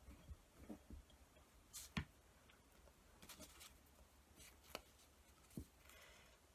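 Near silence with faint, scattered light taps and paper rustles: hands handling a glass jar and pressing glued tissue paper onto it. The sharpest tap comes about two seconds in.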